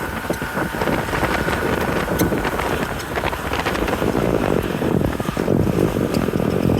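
Wind buffeting the microphone over a running engine, the modded ride-on lawn mower being driven on ice.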